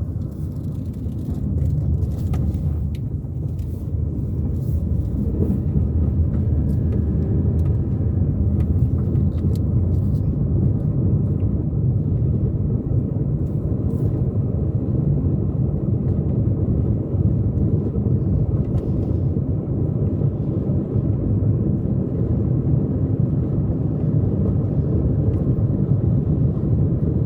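A car being driven, heard from inside: a steady low rumble of road and engine noise that grows a little louder after the first few seconds, with scattered faint clicks in the first half.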